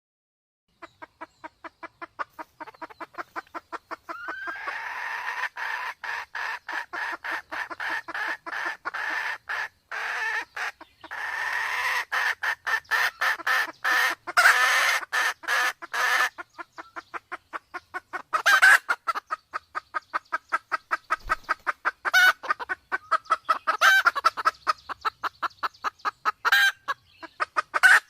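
Sumatran red junglefowl hen clucking in a rapid, steady run of short notes, several a second: the calling of a hen in breeding condition. A denser second layer of calls joins about four seconds in, and louder sharp notes break in at intervals through the second half.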